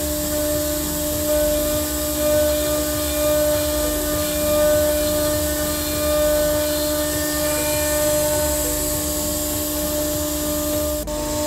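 Haase ALS1208 CNC router running with its vacuum-table pump switched on: a steady machine drone with two steady hums over a rough, wavering low rumble.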